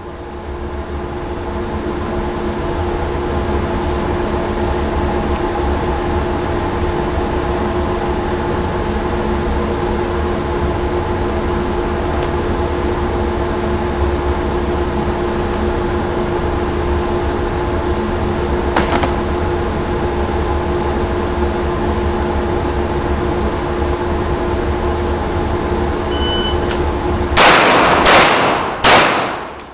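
Steady hum of the indoor range's ventilation. Near the end a short shot-timer beep is followed about a second later by three pistol shots in quick succession, ringing off the range walls.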